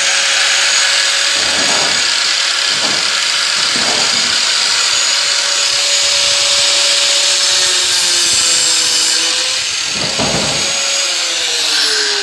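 Angle grinder with a cutting disc running at full speed and cutting around the end of an air-con compressor motor's copper-wound stator, with a few short surges. About eleven seconds in it is switched off and its pitch falls as it winds down.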